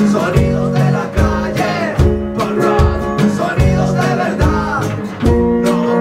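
Live acoustic rockabilly band playing: strummed acoustic guitar and electric guitar over a drum keeping a steady beat of about two strokes a second.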